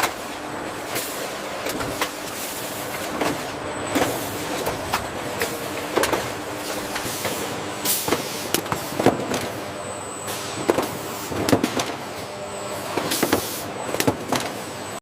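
Processing machinery running with a steady hum and high whine, with frequent irregular clattering knocks.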